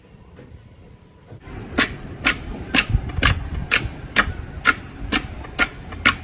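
Slime being pressed and worked, giving sharp popping clicks at a steady beat of about two a second over a low rumble; the clicks start about a second and a half in.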